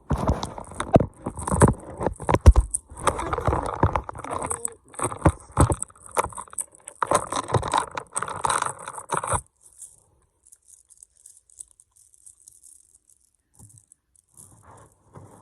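Plastic tangle fidget toy being twisted and played with: rapid, irregular clicking and rattling of its linked segments. It stops suddenly about nine seconds in.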